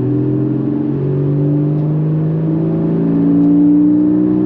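Porsche 981 Cayman GTS's mid-mounted 3.4-litre flat-six, heard from inside the cabin with the exhaust valves open, pulling at low revs around 2000 rpm. Its note steps up in pitch about a second in and then climbs slowly as the car accelerates.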